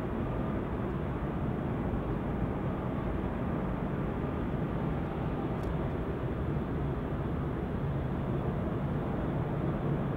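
A Boeing 777 airliner's jet engines making a steady, even noise as the aircraft rolls out after landing with its spoilers up, slowing on the runway.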